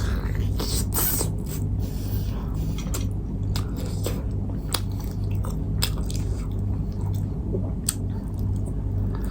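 A person chewing and biting food close to the microphone, with wet mouth clicks and smacks at irregular intervals, over a low, steady hum.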